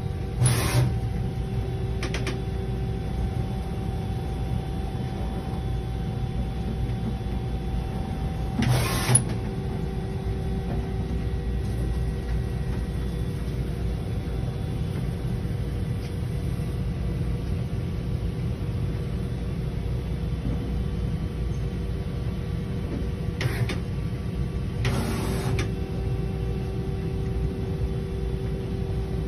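Doosan Puma GT2100 CNC lathe running: a steady machine hum with a low rumble and several held tones, broken by a few short bursts of hiss, the loudest about nine seconds in and another near the end.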